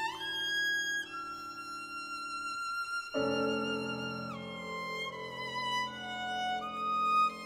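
Viola and piano playing a slow, lyrical passage: the viola slides up into a long held high note, then moves down stepwise in sustained bowed notes, while a low sustained chord enters about three seconds in.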